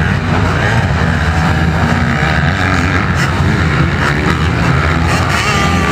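Motocross dirt bike engines running steadily, their pitch stepping up and down as they rev.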